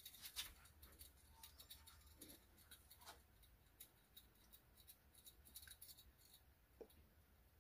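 Near silence: olive oil drizzled from a glass pourer bottle into a stainless steel baking pan, giving only faint scattered ticks, a few slightly stronger in the first half-second.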